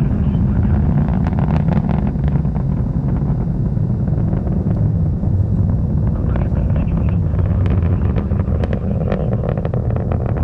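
Distant rumble of a Delta IV Heavy rocket's three RS-68 engines in ascent: a deep, steady roar broken by sharp crackles.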